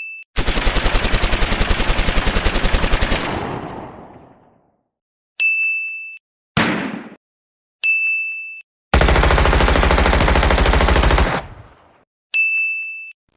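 Two long bursts of automatic gunfire, each of rapid, evenly spaced shots, the first trailing off in a fading echo. Between them is a brief sharp report, and each sound is set off by a short ringing ding used as a separator.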